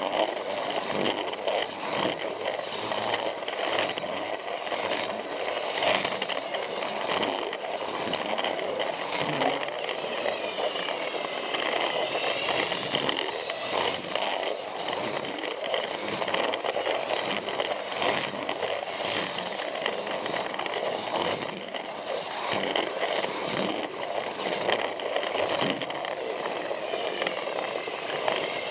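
Battery-powered Plarail toy train running along plastic track: its small motor and gearbox whir steadily while the wheels click and rattle over the track joints.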